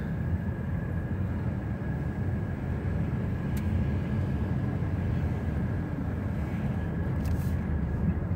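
Car interior noise while driving: a steady low rumble of engine and tyres on the road, with a faint steady high whine above it.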